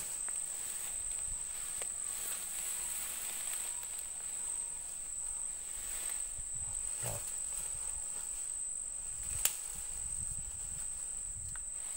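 Insects buzzing steadily at one high pitch, with a few faint rustles and a single sharp click about nine and a half seconds in.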